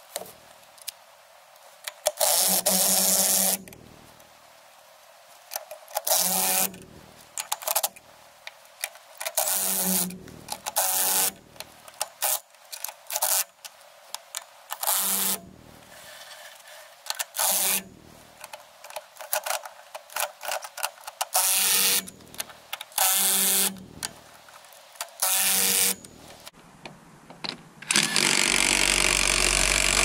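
Cordless impact wrench spinning lug nuts on a truck's wheel studs in repeated bursts of about a second each, with a longer continuous run near the end.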